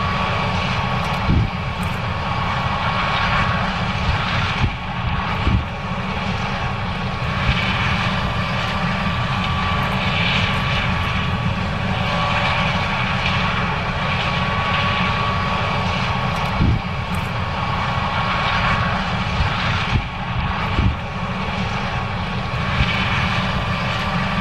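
John Deere S770 combine running steadily while harvesting corn: a constant machinery drone with a steady whine on top and a few short thumps scattered through.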